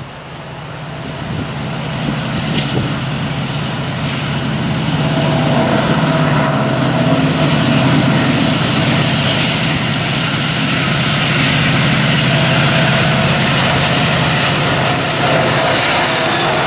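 Norfolk Southern EMD SD70ACe and GE Dash-9 diesel locomotives pulling a freight train past. The engines' deep drone swells over the first five seconds as they draw near, then holds steady as they go by, with a steady whine above it.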